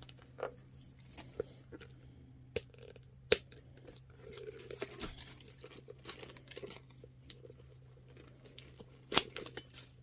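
Packaging crinkling and tearing as a handbag is unwrapped by hand: irregular crackles and snaps, with a longer stretch of crinkling in the middle. The sharpest snaps come about three seconds in and just after nine seconds.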